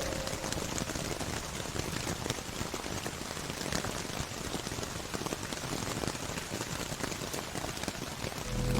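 Rain sound effect: steady rain pattering on a surface, with fine crackling drops. Slowed ambient music fades out just after the start and comes back in shortly before the end.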